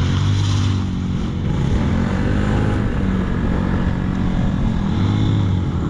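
Motorcycle engine running while riding, its pitch rising and falling a little, over a steady hiss of wind and road noise.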